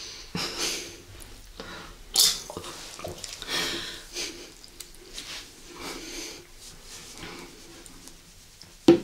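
Close-miked eating and mouth sounds: irregular chewing with breathy noises, and one sharp, loud click near the end.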